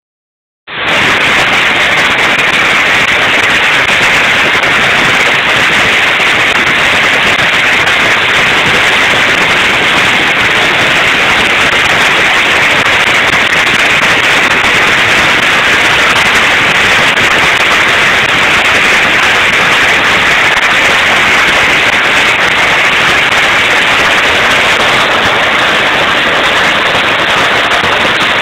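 Long strings of small firecrackers going off nonstop, a dense, unbroken crackle of rapid pops that cuts in within the first second and stays loud and even throughout.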